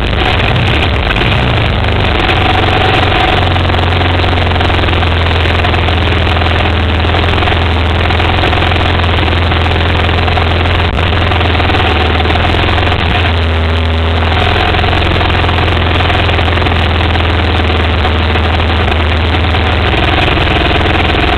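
Single-cylinder ATV engine idling steadily, close to the microphone, with a brief dip in the sound about two-thirds of the way through.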